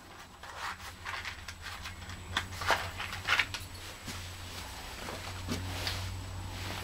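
Scattered light footsteps and scuffs on a hard floor, irregular and short, over a low steady hum.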